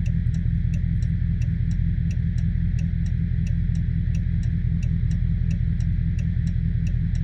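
A Chrysler 300 SRT8's 6.4-litre Hemi V8 idling with a steady low rumble, and the turn-signal blinker clicking about three times a second over it. The owner is listening for a Hemi tick that he suspects comes from the lifters or an exhaust leak.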